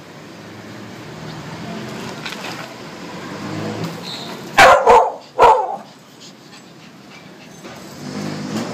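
Miniature pinscher barking three times in quick succession, loud and sharp, about halfway through.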